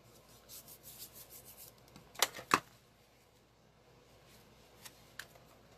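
Paper and card pieces being handled on a craft table: a run of light rustles and ticks, then two sharp clicks close together, as of something set down or snapped shut.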